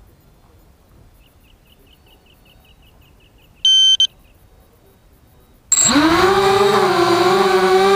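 Walkera Rodeo quadcopter on the ground: faint rapid ticking, then a short loud electronic beep about four seconds in. Near six seconds its motors start suddenly and run at a steady, slightly wavering pitch as it lifts off.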